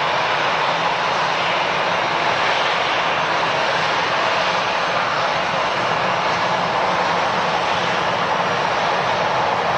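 Airliner jet engines running at an airport, a steady, loud rushing sound with a faint low hum underneath and no rise or fall.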